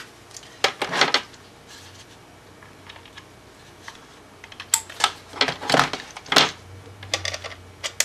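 Hard plastic clicks and knocks from handling a network cable tester and snapping RJ45 plugs into its jacks. They come in scattered groups: a pair about a second in, then a run of clicks over the last three seconds.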